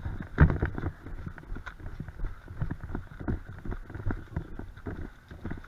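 Footsteps of a person running over a pine forest floor of needles and dry bracken, with steady thudding strides about three a second. The heaviest stride falls about half a second in.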